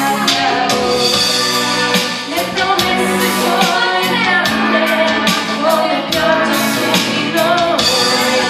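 A song with singing over a steady drum beat.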